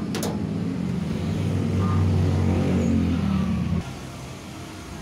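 A sharp click, then a motor's low running hum that grows louder and cuts off abruptly about four seconds in.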